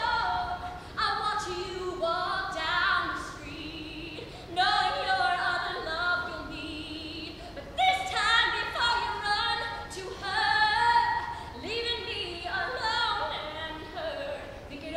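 A woman singing a pop song solo, in short phrases with brief breaks between them.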